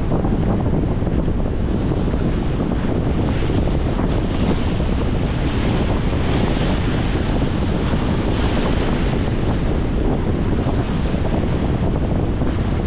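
Strong wind buffeting the microphone, with choppy waves splashing and washing against a concrete shoreline; the hiss of the water grows louder in the middle.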